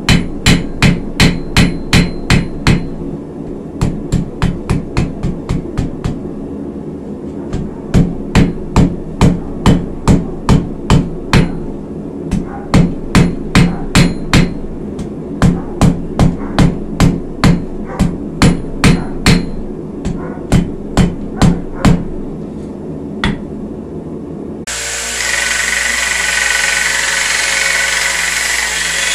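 Hand hammer striking hot steel on an anvil to forge a letter opener: runs of ringing blows, about two to three a second, broken by short pauses. About 25 seconds in, the hammering stops and a small bench belt sander starts running steadily as the blade is ground.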